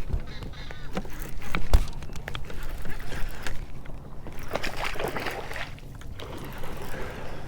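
Water sloshing and gurgling against a kayak hull, with a few hollow knocks, the loudest a little under two seconds in.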